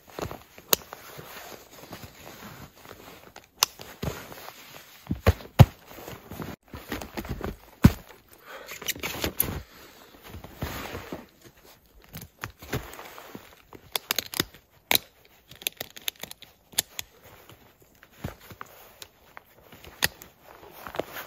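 Boots crunching and shuffling in snow while snowshoe bindings are strapped on, with many irregular sharp clicks and snaps from the straps and buckles.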